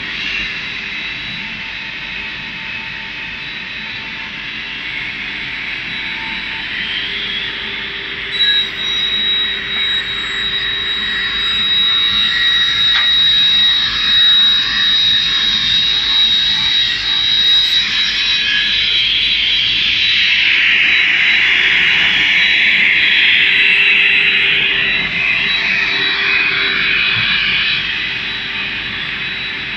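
V-Hold MJ163C straight-line rip saw running with a steady high whine. About eight seconds in a sharper high-pitched whine joins as a board feeds through and is cut, and the sound grows louder through the middle before easing near the end.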